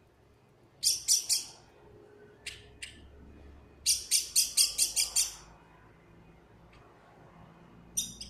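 A black bird giving short, harsh, high-pitched calls in groups: three at about a second in, two brief ones, then a fast run of about eight, and a single call near the end.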